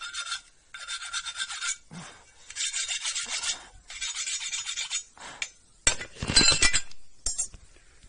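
Abrasive rubbing over a worn drum-brake shoe, in about four strokes of a second or so each, then a louder, rougher scrape about six seconds in and a short one just after.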